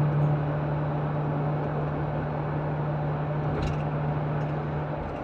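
Car interior noise while driving at highway speed: a steady rush of road and engine noise with a low steady hum that drops away near the end, and one light click a little past halfway.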